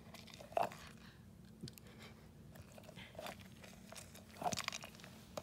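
A few scattered crunches of a treat being chewed, the loudest about half a second in and another near the end.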